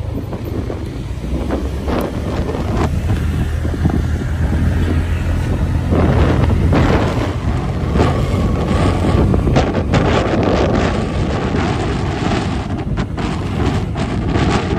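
Wind buffeting the microphone over the steady low running of a motorcycle engine and road noise while riding; the wind gets heavier from about six seconds in.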